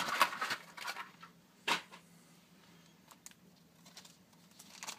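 Hands opening a trading card pack: rustling and scraping of the wrapper and cards in the first second, one sharp tearing or snapping noise a little later, then faint small clicks of handling.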